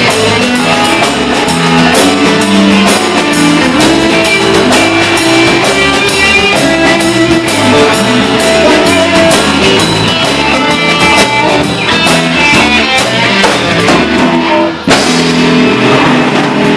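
Rock music with guitar and a drum kit playing, without singing; the sound drops out for a moment about 15 seconds in.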